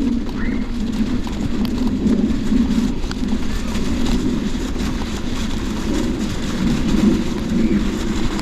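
Rose Backroad AL gravel bike's tyres rolling slowly over a snowy, icy path: a steady rumbling rush with faint scattered crackles.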